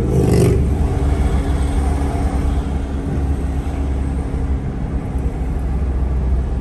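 Road noise inside a moving car's cabin: a steady low rumble from the engine and tyres, with a faint steady hum that fades out about five seconds in. A brief noise at the very start is the loudest moment.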